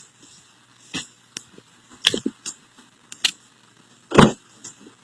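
Scattered light clicks and knocks of things being handled, with one louder, deeper thump about four seconds in.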